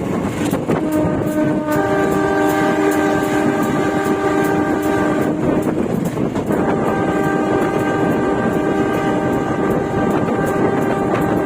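Train locomotive horn sounding long multi-tone blasts, two of about five seconds each with short breaks between and another starting near the end, over steady wheel-and-rail noise with clicking. These are long warning blasts for level crossings with broken barriers.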